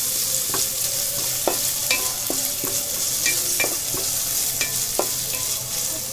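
Carrot strips sizzling in hot oil in a metal pan, stirred with a spatula that taps and scrapes irregularly against the pan, some taps leaving a short metallic ring.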